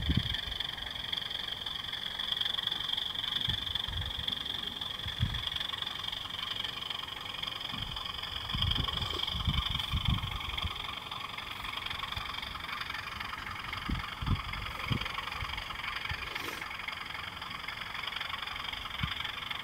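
OO gauge Class 37 model diesel locomotive running light along the track, a steady high-pitched drone with fainter hum beneath it. Irregular low thumps come and go throughout.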